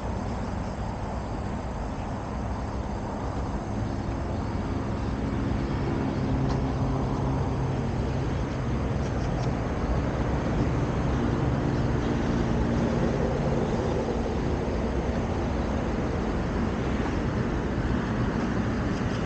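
Steady rumble of road traffic, with the hum of a vehicle engine passing through the middle of the stretch.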